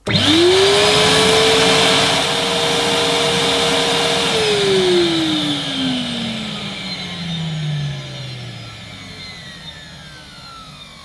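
Numatic George vacuum cleaner's 1000-watt motor switched on with its hose sealed on a suction gauge: it spins up quickly to a steady whine, then is switched off about four seconds in and winds down, the whine falling in pitch and fading away.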